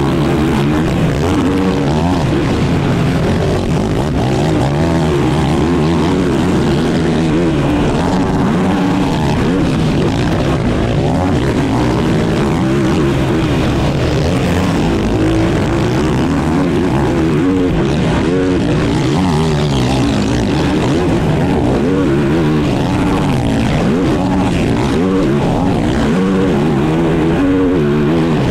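A race quad's engine heard from onboard, revving hard and falling back over and over as the pitch climbs and drops through the gears and corners.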